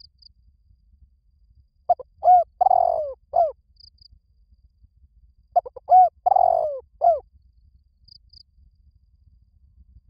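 Spotted dove cooing: two phrases of several short, arched coos, each phrase about a second and a half long, the second starting about four seconds after the first.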